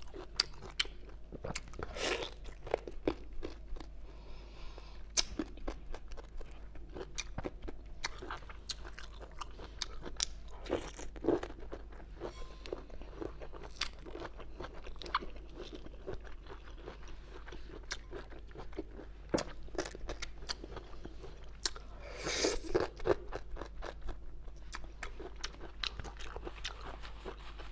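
Close-miked crunching and chewing of fibrous bamboo shoot: many crisp bites and wet mouth clicks, with a few louder crunches.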